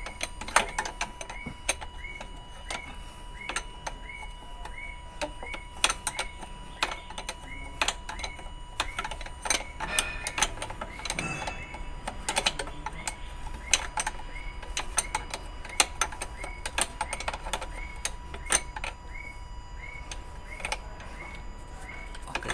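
Isuzu 10PE1 V10 diesel being cranked on the starter without firing, with rapid mechanical clicking and a regular tick about twice a second, while air is bled from its cracked injection-line fittings. A spanner clinks on the fittings near the end.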